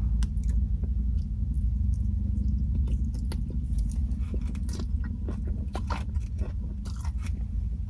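Close-up chewing and crunching of food, with many short irregular clicks, over a steady low hum.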